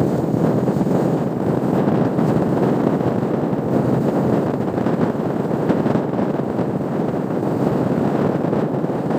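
Wind rushing over a cellphone's microphone on a moving motorcycle: a steady, loud rumbling rush.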